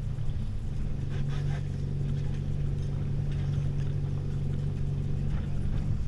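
The Elan 450 sailing yacht's inboard diesel engine idling steadily while the boat is held at the pontoon.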